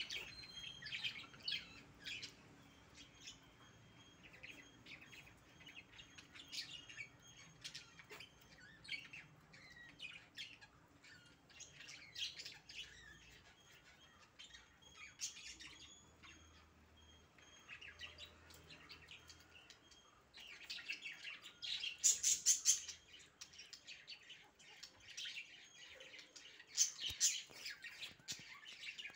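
Pomeranian puppies squeaking in short, high chirps while they eat from a shared bowl, louder in two clusters about two-thirds of the way in and near the end.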